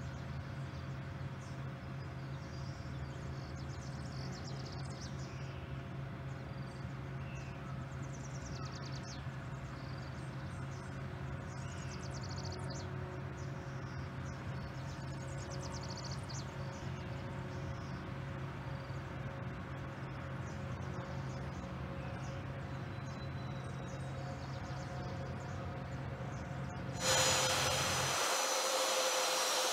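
Air Force One, a Boeing VC-25A (747), taxiing with its four turbofan engines at low power: a steady low rumble with a few steady hum tones. About 27 seconds in it jumps to a much louder high-pitched jet whine and hiss.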